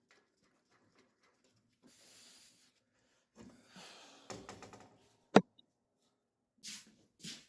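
Scattered handling noises while a motorcycle front end is fitted: faint scuffing and scraping, then a single sharp knock about five and a half seconds in, and two brief scuffs near the end.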